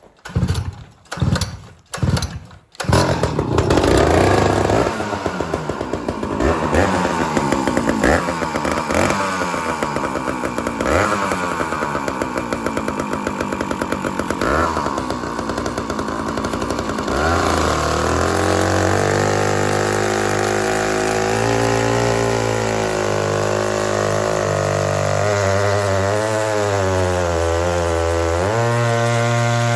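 Old Stihl 051 two-stroke chainsaw pull-started with several sharp pulls; it catches about three seconds in and runs at high revs as it cuts a shallow trench into a large oak round for a splitting wedge. Later the engine note drops and wavers as the saw works under load in the cut.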